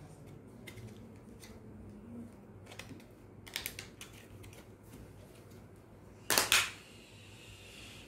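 Faint clicks and rustles of a RAM module being worked out of its packaging by hand. There is a cluster of sharper clicks about three and a half seconds in, and a louder crackle about six and a half seconds in.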